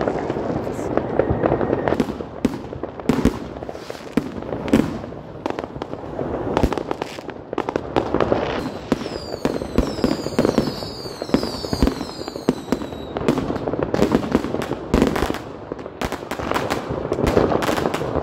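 New Year's fireworks going off all around: a dense, irregular run of rocket and firecracker bangs and crackles. Near the middle come several high whistles falling in pitch.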